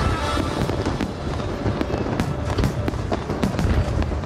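Fireworks going off in quick succession, sharp bangs and crackles coming thickest from about two seconds in, with music playing underneath.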